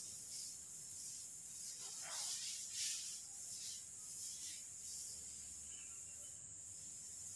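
Faint swishing of a wooden chalkboard duster wiping a blackboard, a few strokes about two to three seconds in, over a steady high hiss.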